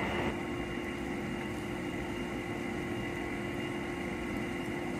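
An old air-conditioner condensing fan running steadily in a barrel shroud, blowing air through a wood stove heat exchanger: a constant whir with a steady hum.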